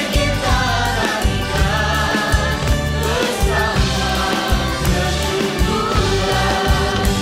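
A choir singing with a band: voices held and gliding over keyboards, conga drums and a steady drum beat with bass.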